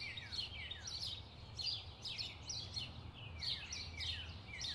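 Several birds chirping continuously, short calls that each slide down in pitch, overlapping at several a second, over a steady low rumble.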